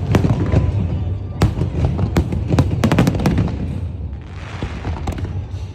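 Aerial fireworks display: many sharp bangs in quick succession over a continuous low rumble of bursting shells, with a crackling hiss about four seconds in.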